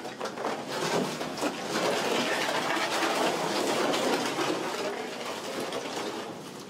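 Rustling, scraping and shuffling of people in waterproof clothing and rubber boots moving and crawling along a narrow, wet mine gallery, slowly fading toward the end.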